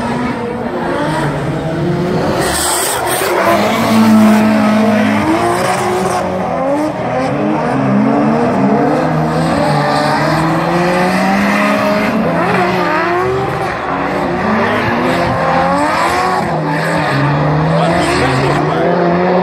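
Two drift cars sliding in tandem, their engines revving hard in repeated rising and falling surges that overlap, with tyres squealing as they spin and slide.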